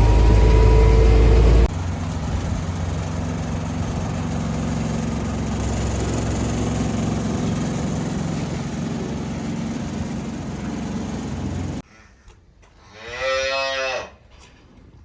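A heavy engine runs and cuts off, giving way to steady machinery noise with a low hum. Near the end, after a quiet moment, a cow moos once for about a second.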